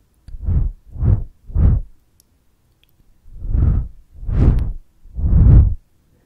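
Breath blown straight onto a foam-covered microphone: three short quick puffs, a pause of about a second, then three longer blows, each a deep buffeting gust of wind noise on the mic.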